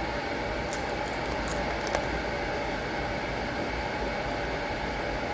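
Steady whooshing background noise, with a few faint short crackles and a single click between about one and two seconds in.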